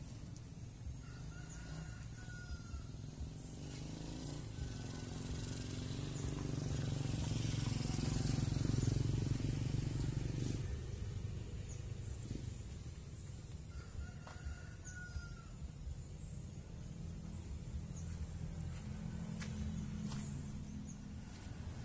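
Rural outdoor ambience: a steady high insect drone, a low rumble that swells about six seconds in and falls away about ten seconds in, and a few short bird calls, twice in small clusters.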